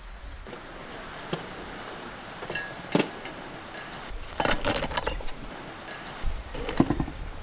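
Oreo biscuits handled and dropped into a stainless steel mixer-grinder jar, the cookies clinking and clattering against the metal in scattered knocks, with a busier clatter about four and a half seconds in.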